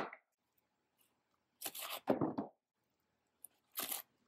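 Candy being pushed into a crepe-paper piñata through its filling hole: a few short bursts of crinkling wrapper and paper rustle, spaced a second or two apart.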